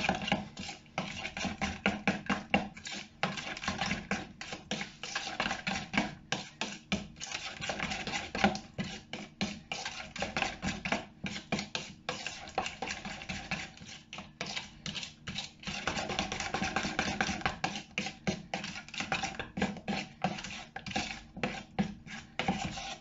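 A metal spoon stirring thick sour-cream and mayonnaise dressing in a plastic bowl: rapid, steady scraping strokes, several a second, as the dressing is mixed smooth.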